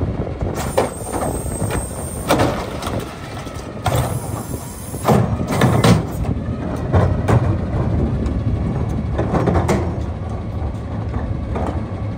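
Autocar garbage truck's engine running steadily while plastic wheeled trash carts are tipped into its McNeilus carry can, with knocks and bangs from the carts and two long bursts of hissing air.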